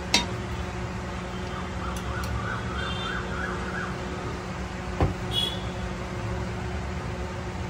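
Steady background hum with a faint warbling electronic tone, like a distant alarm, for about two seconds in the middle. Two sharp clicks, one at the start and one about five seconds in.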